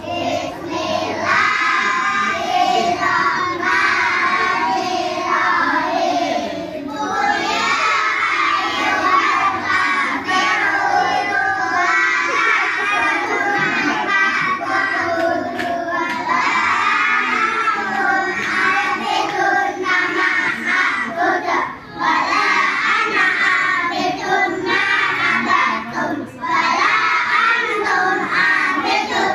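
A group of young children singing together into a microphone, amplified through a loudspeaker. The singing carries on throughout, with only brief pauses between phrases.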